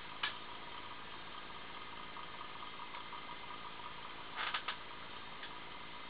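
Computer hardware humming steadily, with a few short clicks: one just after the start and a quick run of three about four and a half seconds in.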